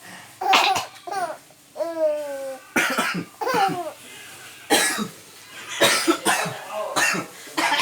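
A man coughing about five times in short single coughs, with a baby laughing and squealing in the gaps between them.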